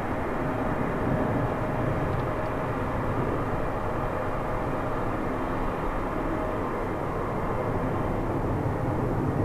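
Jet engines of a JAL Airbus A350-900 airliner, Rolls-Royce Trent XWB turbofans, making a steady, even roar with a faint underlying hum.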